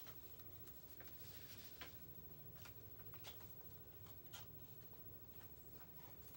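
Near silence: faint small-room tone with a handful of soft scattered clicks and a brief rustle about a second in.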